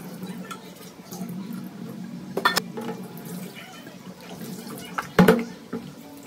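Tap water running steadily into a stainless steel kitchen sink as a pan and a plastic container are rinsed. Two sharp knocks of things striking the sink come about two and a half seconds in and about five seconds in, the second the louder.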